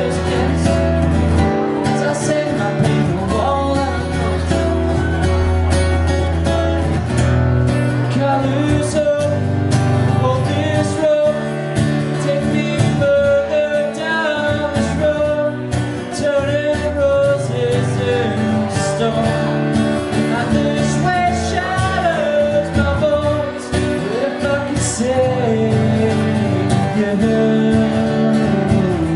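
Solo singer singing with a strummed acoustic guitar in a live performance.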